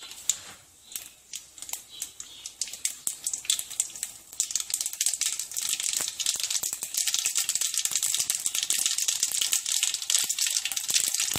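Mustard seeds popping and crackling in hot oil in a kadai: scattered pops at first, thickening into a dense, steady spatter from about four seconds in as the seeds splutter during tempering.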